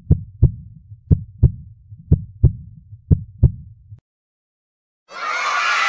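Heartbeat sound effect: four double thumps, lub-dub, about one a second, which stop about four seconds in. After a second of silence, loud screaming and cheering breaks out near the end.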